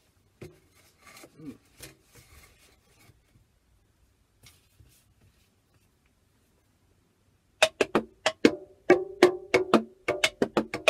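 A few seconds of faint rustling and handling, then, from about three quarters of the way through, thin sticks tapping quickly on homemade drums made of cardboard tubes with stretched balloon heads. It comes at about four strokes a second, each a short, pitched knock.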